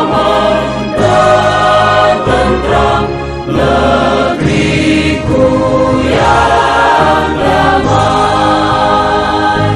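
Choir singing with musical accompaniment, a steady piece of music with a strong bass line.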